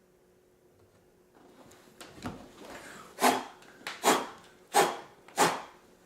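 Rasping strokes: four loud ones a little under a second apart, with fainter strokes before and after.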